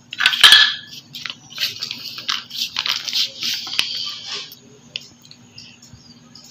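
Mayonnaise squeezed from a squeeze bottle onto a burger bun: a run of short hissing, spluttering noises, loudest about half a second in, trailing off after about four and a half seconds.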